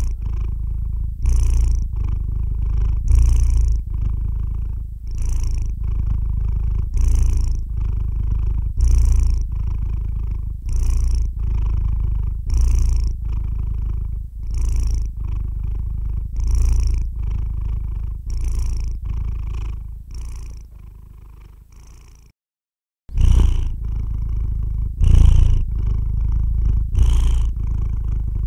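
A sleeping domestic cat purring steadily close to the microphone: a low rumble that swells and eases with each breath, about every two seconds. The sound cuts out completely for under a second about 22 seconds in.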